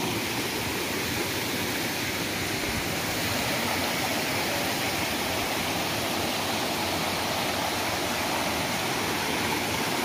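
Water from a forest waterfall rushing and cascading over boulders in a rocky stream: a steady, even rush.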